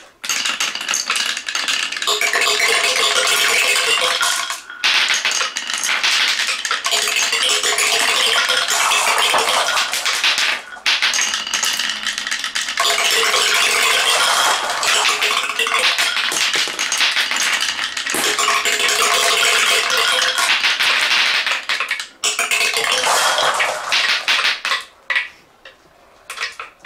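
Many glass marbles clattering and rolling down a wooden Haba marble run and dropping into a wooden box, in a dense continuous rattle. The rattle comes in batches, with brief lulls about 5, 11 and 22 seconds in, and thins out to a few last clicks near the end.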